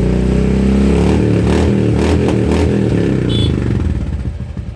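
Royal Enfield Classic 350 Reborn's single-cylinder engine revving through an aftermarket silencer with its dB killer removed. It drops back toward a slow, thudding idle near the end.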